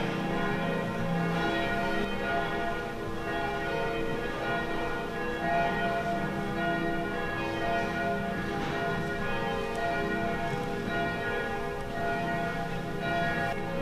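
Church bells ringing in a continuous peal, several bells sounding over one another.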